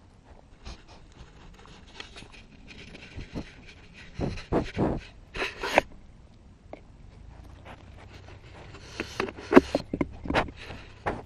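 A goat sniffing and snorting right at the microphone, its breath puffs and nose or mouth bumping against it, in two bursts of activity.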